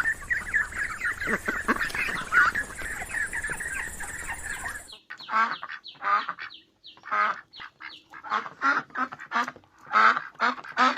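Ducks quacking: for about the first five seconds a flock calls over one another against a steady hiss, then the sound changes to a dozen or so separate short quacks.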